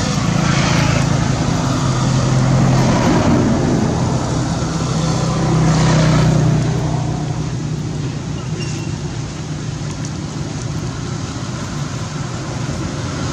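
A motorbike engine running with a steady low hum, loudest for the first six seconds or so and then fading.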